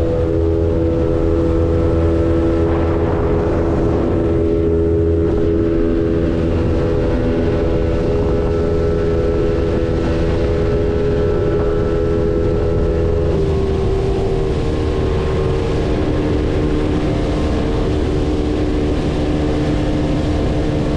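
Boat motor running steadily under way, with water and wind noise; the engine's pitch shifts slightly about thirteen seconds in.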